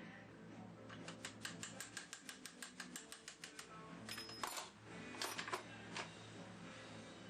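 A quick run of small sharp metallic clicks, about seven a second, then a few louder clicks and snaps about halfway through, while a gudgeon-pin circlip is worked into its groove in a two-stroke piston. Quiet background music plays underneath.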